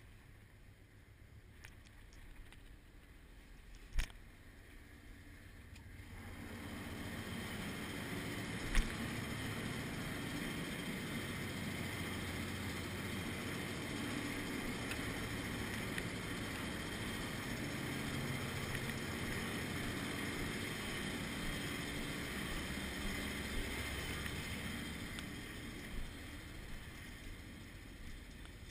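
Steady rumble and hiss of a ship's engines and ventilation below decks, coming up about six seconds in and easing near the end. A sharp click about four seconds in and a knock around nine seconds in.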